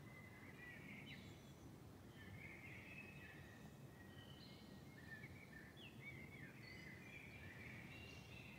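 Many birds calling together in a faint dawn chorus: a continual chatter of short chirps, trills and quick sweeping notes, over a steady low background hiss.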